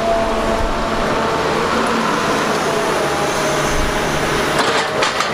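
Large Doosan DX380 crawler excavator working a grab: steady diesel engine and hydraulic drone with a faint whine. A cluster of sharp knocks comes near the end.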